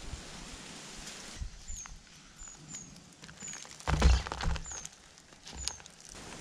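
Water pouring from a watering can onto soil for about the first second and a half. Then a brisk rustle with soft knocks from hands handling wet spinach seedlings on a plastic sack, loudest about four seconds in, while short high chirps repeat about once a second.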